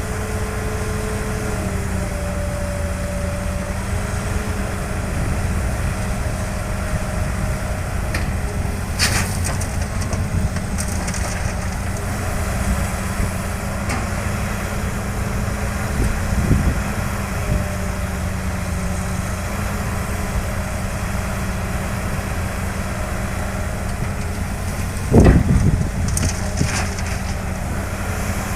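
Heavy diesel construction machinery running steadily, with a few scattered knocks and a loud clattering impact near the end.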